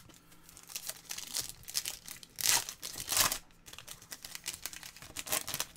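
Foil wrapper of a Topps Chrome trading-card pack crinkling as it is handled and torn open. The crackles are irregular, loudest about two and a half and three seconds in, with another run near the end.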